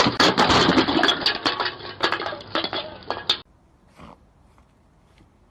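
Loud, dense clatter of hard objects knocking together, lasting about three seconds and stopping abruptly, followed by a couple of faint knocks.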